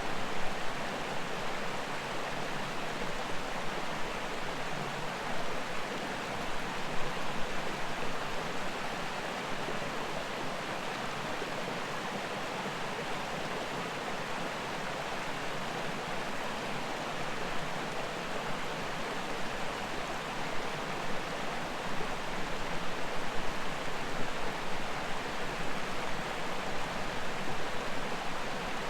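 Rushing water of a mountain creek and waterfall: a steady, even rush.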